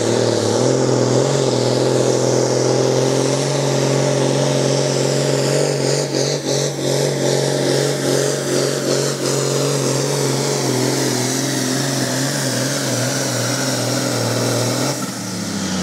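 Case tractor's diesel engine pulling a weight-transfer sled under full load, held at steady high revs. Near the end it eases off as the pull finishes.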